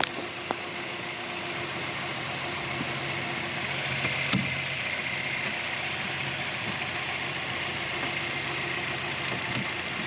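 A car engine idling steadily, with a light click about four seconds in.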